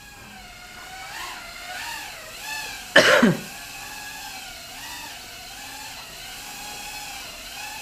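Eachine Tyro89 toothpick FPV quadcopter on a 3S battery hovering, its small brushless motors and propellers whining, the pitch wavering up and down as the throttle is worked. About three seconds in, a person coughs once, briefly and loudly.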